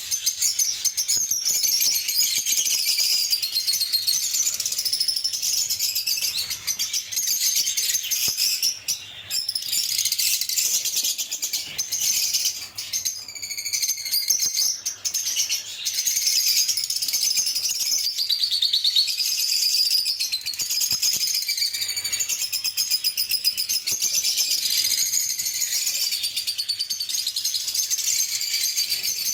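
Lovebirds chirping and chattering without a break: a dense, fast stream of high, raspy calls.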